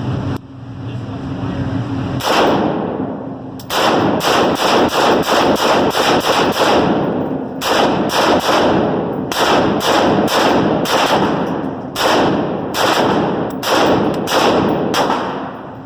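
Rapid semi-automatic gunfire: a single shot about two seconds in, then strings of shots at roughly three to four a second, broken by brief pauses, each shot ringing out with a short echo.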